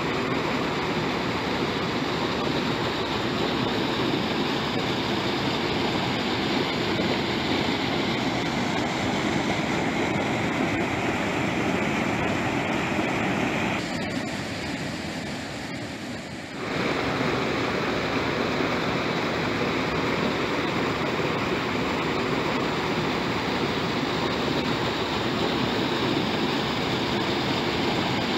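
Steady rush of flowing river water. About halfway through it fades down for a couple of seconds, then cuts back in abruptly.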